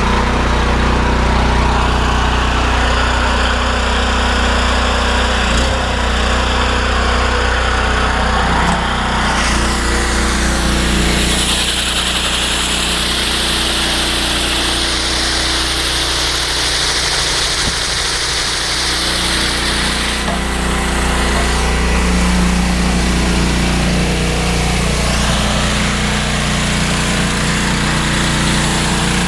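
Engine-driven pressure washer running steadily. A hiss of high-pressure water spray comes in about eleven seconds in, eases off about twenty seconds in, and returns more faintly near the end.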